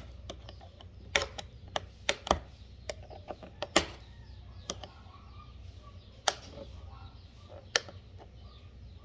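Sharp metallic clicks and taps, spaced irregularly, as fingers and scissors pry at the stiff opening key fixed to the lid of a tin can, over a low steady hum.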